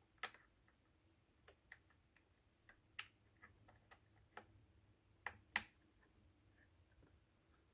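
Irregular light metallic clicks and ticks from an Allen key working the headrest screws of a mesh office chair as they are tightened, with a louder click about five and a half seconds in.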